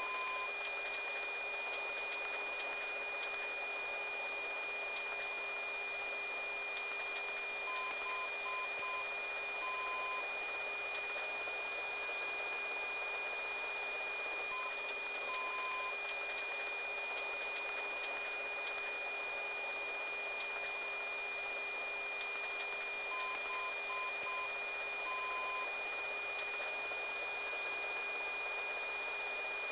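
Steady electronic static hiss with constant high whining tones, broken every seven to eight seconds by a group of short electronic beeps, usually three quick ones and a longer one, added over drone-camera footage.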